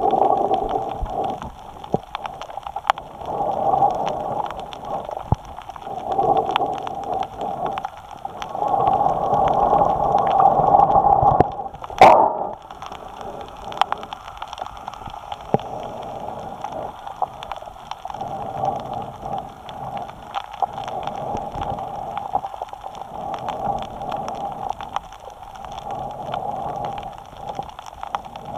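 A snorkeler's breathing through the snorkel, picked up by a camera mounted on the snorkel: hissing breaths that swell and fade every two to three seconds, with one sharp click about halfway through.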